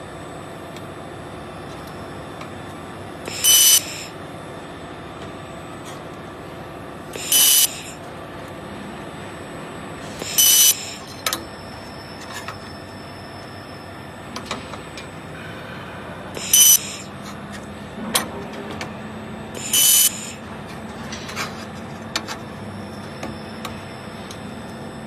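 Handheld 1000 W fiber laser welder firing five short bursts of about half a second each, a hiss with a high steady tone in it, as it tacks steel plate together. A steady hum runs underneath, with a few small ticks between the bursts.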